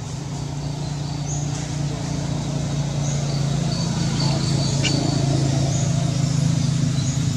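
A low, steady motor drone that grows slowly louder, with short high chirps every second or two.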